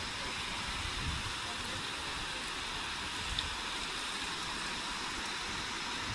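Steady rushing of a river running high, with a few faint low bumps.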